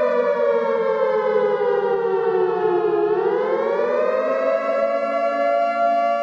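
Civil defense siren wailing with several tones at once: its pitch sinks slowly, bottoms out about three seconds in, then rises again and holds steady.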